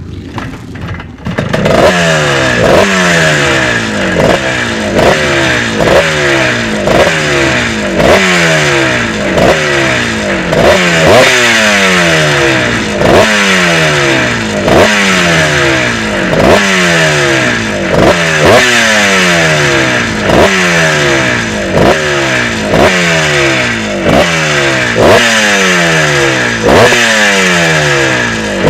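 1968 Cotton Starmaker 250's single-cylinder two-stroke engine catching about a second and a half in, then revved in sharp throttle blips about once a second, each rising quickly and falling back.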